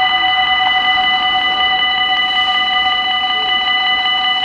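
Dutch level-crossing warning bell ringing rapidly and without a break as the crossing closes, signalling an approaching train.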